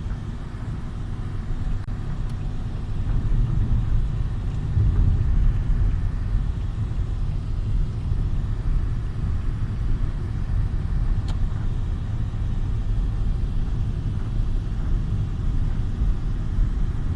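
A steady low rumble with some noise above it and no clear engine tone.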